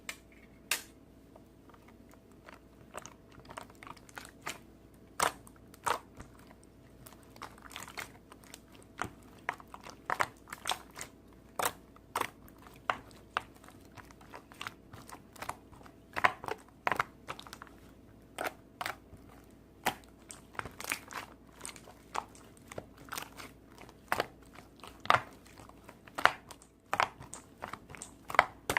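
Close-up, irregular crunching and crackling clicks, about one or two a second, with a faint steady hum underneath.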